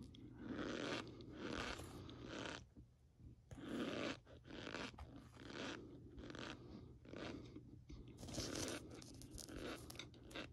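A spoon digging into and scooping a heap of cornstarch, the packed powder crunching with each stroke, about one stroke a second.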